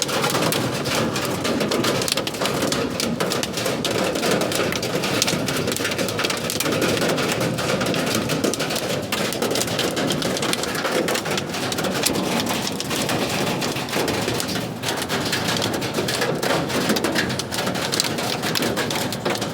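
Hailstones pelting down with rain: a dense, steady clatter of countless small impacts over a rushing hiss.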